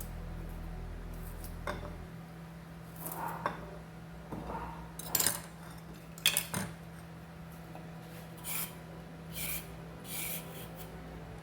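Kitchen work with utensils and dishes: scattered clinks and knocks in the first half, then a run of evenly spaced swishing strokes about one a second, over a low steady hum.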